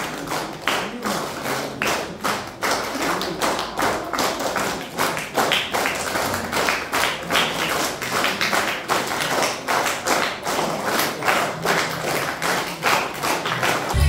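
A few people clapping by hand: separate, sharp claps, several a second, in an uneven patter.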